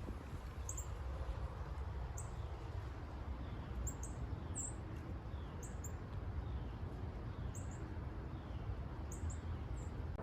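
Small birds giving many short, very high chirps every second or so, with fainter falling notes, over a steady low rumble of wind on the microphone.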